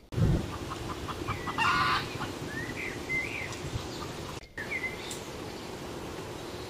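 Chickens clucking and calling, with one loud short squawk about two seconds in and a few short rising-and-falling calls after it, over a steady outdoor rush of wind. A low thump sounds right at the start.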